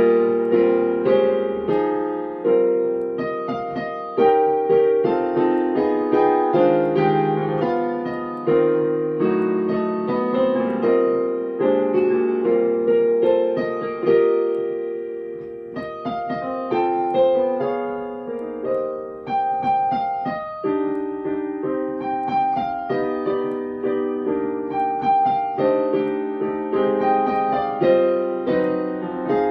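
Solo piano music on a digital piano: chords with a melody above them, each note struck and left to fade, at a steady moderate pace.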